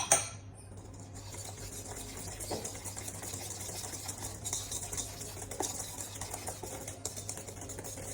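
Hand whisk beating an egg-yolk, sugar and cream batter in a bowl: a quick, steady run of scraping and clicking as the wires hit the bowl. There is a sharp knock right at the start.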